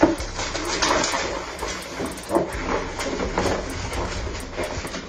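Wrapping paper and cardboard crinkling, rustling and tearing in irregular bursts as small Yorkshire terriers rip into a wrapped gift box.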